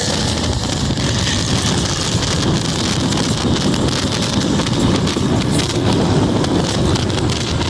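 Steady rush of wind and road noise buffeting a phone's microphone inside a car travelling at highway speed, heaviest in the low range, with no clear engine note.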